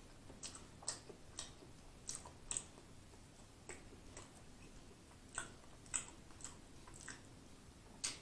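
Close-miked chewing of a fried chicken sandwich: irregular wet mouth clicks and smacks, with a sharper bite near the end.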